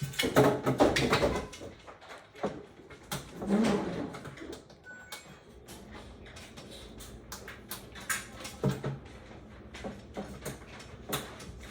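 Handling noise from assembling parts by hand: irregular knocks and rattles in the first few seconds, then a run of small sharp clicks as pieces and screws are fitted.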